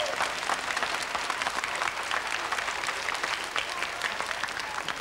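A large audience of children and adults applauding, a dense patter of many hands clapping that slowly dies down.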